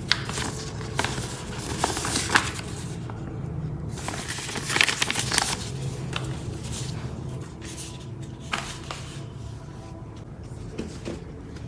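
Packaging being handled: paper or plastic rustling and crinkling in irregular bursts, busiest in the first half and sparser later, over a steady low hum.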